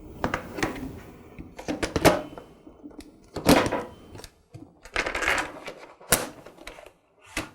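Irregular clicks, knocks and short scraping rubs of a wooden double-hung window sash and its tilt latches being handled, with a sharp click about six seconds in.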